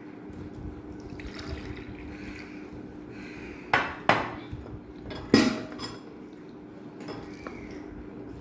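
Cooking pots and utensils clinking: three sharp clinks about midway, with a smaller one just after, over a steady low hum.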